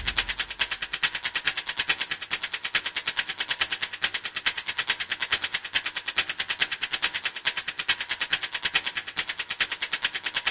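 Rapid, even clicking, about ten clicks a second, thin and high with little low sound, steady throughout.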